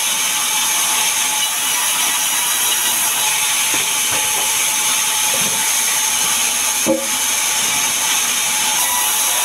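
Band saw ripping sengon (albizia) timber: a loud, steady, high-pitched hiss as the blade runs through the wood. There is a single sharp knock about seven seconds in.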